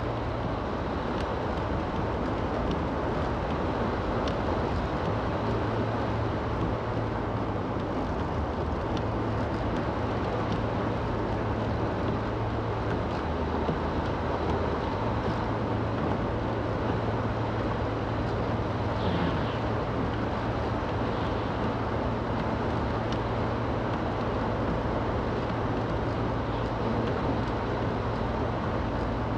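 Steady drone of a small car's engine and tyres running through slush on the road, heard from inside the cabin.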